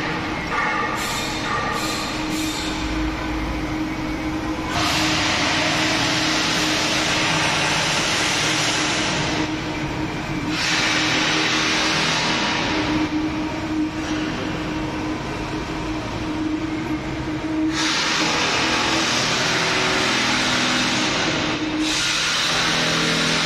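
Steady machine hum under a loud rushing noise that cuts in and out every few seconds.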